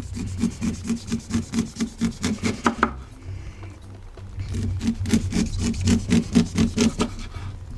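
A kitchen knife sawing down the side of a boiled corn cob, cutting the kernels off in quick, even scraping strokes. It pauses briefly about three seconds in, then starts again.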